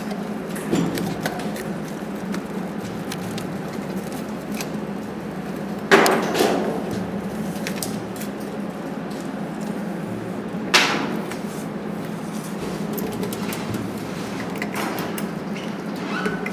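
Knocks and clatter from a hand working on a fan coil unit's spring hanger isolator on its threaded rod, over a steady low hum. The loudest knock comes about six seconds in and another about eleven seconds in.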